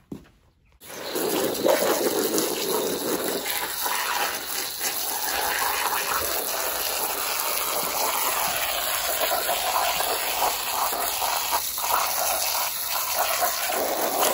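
Garden hose spray nozzle jetting water onto a soapy horse rug on concrete, rinsing it. A steady hiss of spray and splashing starts about a second in and keeps on unbroken.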